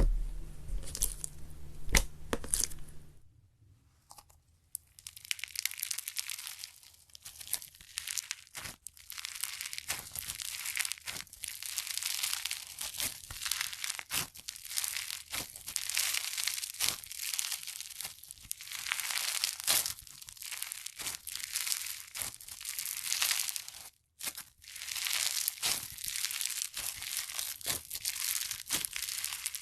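Crunchy slime being squeezed and pressed by hand, giving dense crackling and popping with sharp clicks. There is a short silent break about four seconds in and a brief cut-out near the end, where one clip gives way to the next.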